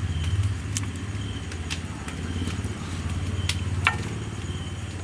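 A steady low engine-like rumble, with a few sharp clicks over it.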